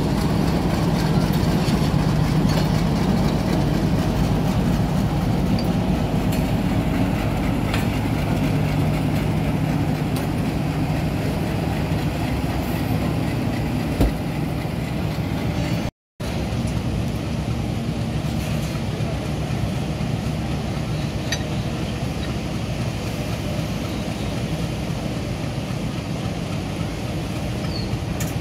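Diesel locomotive engine running as the locomotive moves along the track, a steady low drone that slowly weakens as it draws away. The sound cuts out briefly about halfway through.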